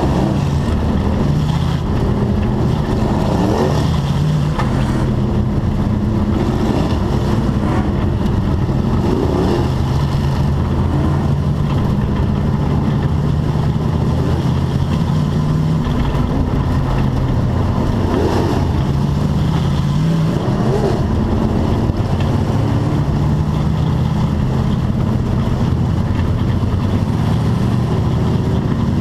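Bomber-class dirt-track race car engine running at low speed, heard from inside the car, its pitch rising and falling a little with the throttle.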